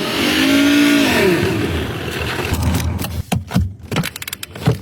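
A vehicle engine revs up and falls back once, then a string of sharp clicks and knocks near the end.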